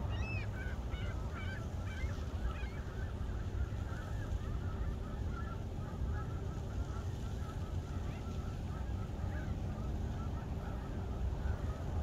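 A flock of gulls calling: many short, overlapping cries, thickest in the first few seconds and then thinning out. Under them is a steady low rumble of wind on the microphone.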